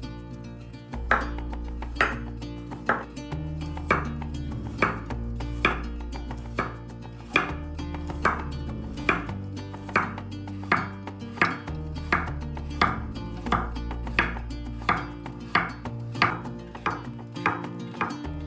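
Knife chopping vegetables on a cutting board in steady, even strokes, about one a second, starting about a second in, over soft background music.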